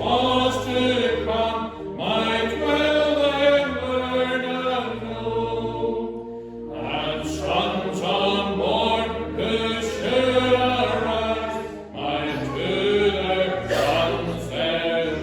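Church congregation singing a hymn together over steady instrumental bass notes, with short breaks between lines about six and twelve seconds in.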